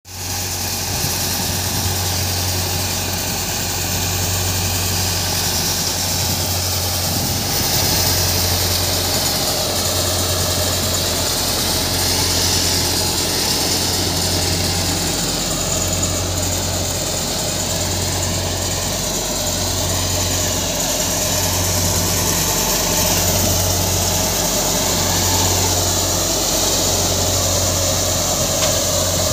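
Mahindra Arjun Novo 605 DI-i tractor engine running steadily under load, driving a threshing machine that is being fed with crop stalks. A low engine hum swells and fades slowly, about once a second in the second half, under the steady hiss of the thresher.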